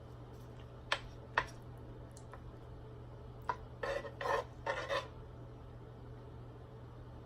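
Eating utensils clicking twice against a dish, then three short scraping sounds on the plate a few seconds later.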